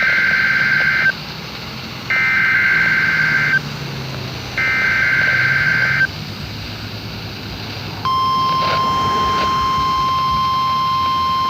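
NOAA Weather Radio sending an Emergency Alert System Required Weekly Test. Three short, identical bursts of screeching digital SAME header data, each about a second and a half long, are followed about eight seconds in by the steady, high, single-pitched warning alarm tone.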